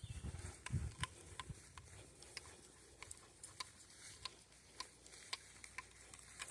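Faint, irregular light ticks and crunches of footsteps on a trail, with a few low thumps in the first second.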